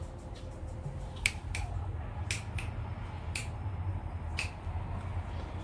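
A series of seven or so sharp clicks at uneven intervals, the loudest about a second in, over a steady low hum.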